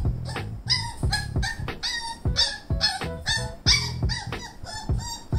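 Pembroke Welsh Corgi puppy whining in short high-pitched cries, about two a second, over background music with a steady beat.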